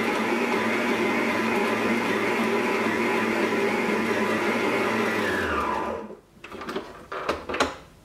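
Stand mixer motor running steadily at medium-high speed as its dough hook kneads enriched bread dough, then winding down with a falling pitch about five and a half seconds in as it is switched off. A few sharp knocks and clicks follow near the end.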